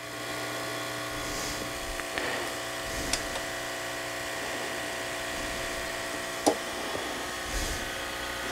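Hand-held hot-air heat gun running steadily, its small fan motor giving a steady whine over the rush of blown air, with two light clicks about three and six and a half seconds in.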